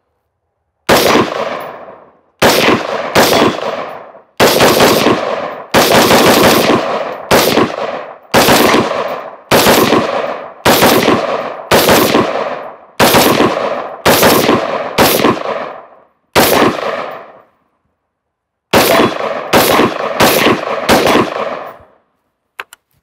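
Daniel Defense MK18 pistol, a 10.3-inch-barrel AR firing 62-grain 5.56 rounds in a fast semi-automatic string. Each loud crack is a fraction of a second after the last and trails a short echo. There is a pause of about a second before the final few shots. The gun cycles the whole magazine with no malfunctions.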